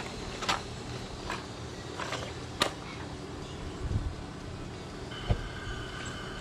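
A match struck a few times with short sharp scrapes, then an outdoor propane burner catching with a sharp whoomp about five seconds in. A steady high whistle sets in as the burner runs.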